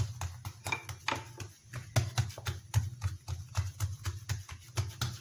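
Hands patting and pressing a sheet of bread dough out on a marble countertop: a steady run of soft slapping thumps, about three a second.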